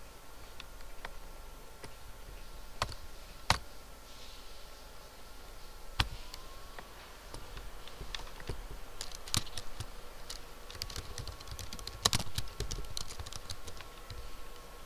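Typing on a computer keyboard: a few single clicks early on, then a quick run of keystrokes in the second half as a short phrase is typed.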